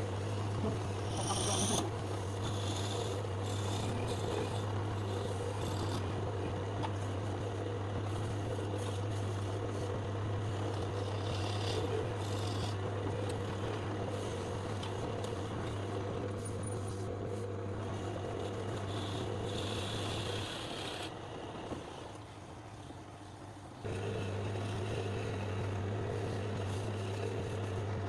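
A woodworking machine running with a steady low hum and some scraping, stopping for about three seconds near the end and then starting again.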